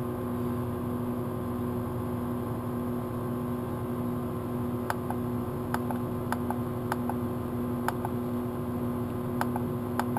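Steady hum of an air conditioner running off a power inverter. From about five seconds in, a run of sharp clicks, often in quick pairs, as buttons on the solar charge controller are pressed.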